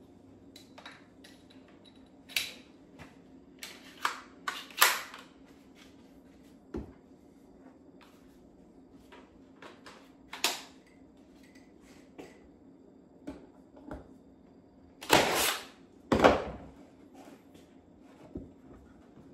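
Scattered clicks, knocks and short rustling bursts of hand tools and wood trim pieces being handled on a countertop, with the loudest pair near the end. A faint steady low hum runs underneath.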